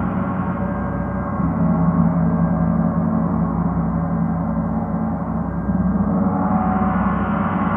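A gong sounding continuously, a dense wash of many overlapping tones. It swells about a second and a half in and again near six seconds.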